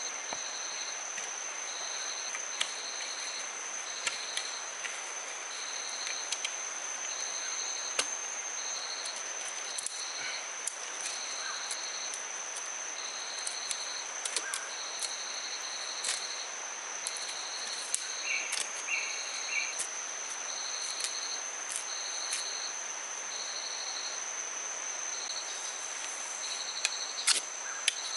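Tropical forest insects calling: one holds a steady, high-pitched buzz while another chirps in short, regular pulses, over an even background hiss. Scattered faint clicks throughout and a few sharper knocks near the end.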